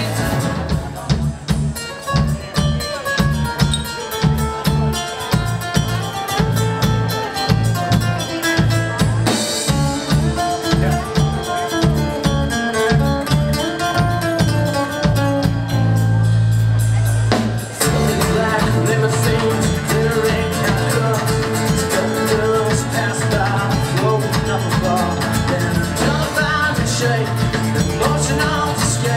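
Live band playing a song on nylon-string acoustic-electric guitar, electric bass and drum kit. About halfway through the band holds a low note for a second or two, breaks off briefly, and comes back in.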